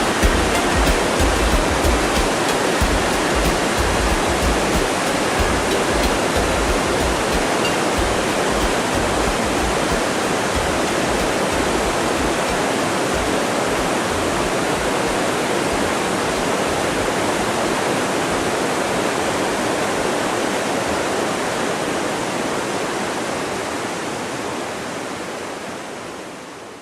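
Steady, dense rush of a waterfall, with an uneven low rumble under it in the first half. It fades out over the last few seconds.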